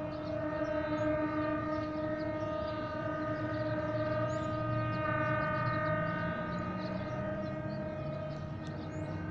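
EMD GT22CW diesel locomotive's air horn sounding one long steady blast of about nine seconds, fading near the end, over the low rumble of the locomotive's engine. Birds chirp faintly above it.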